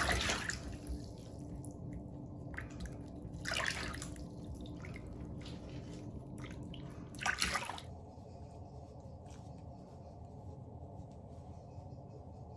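Shallow bathwater splashing and sloshing as a small dog's muddy paws are washed by hand in a bathtub, with three louder splashes a few seconds apart. It goes quieter about two-thirds of the way through.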